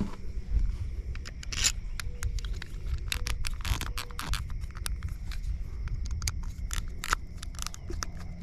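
Irregular small clicks and scrapes of screws and a plastic plug housing being handled and fitted together, as a replacement extension-cord receptacle end is screwed together.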